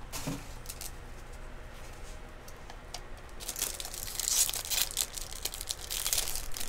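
Foil baseball card pack wrapper handled, then torn open and crinkled. The crackling gets much denser and louder about halfway through.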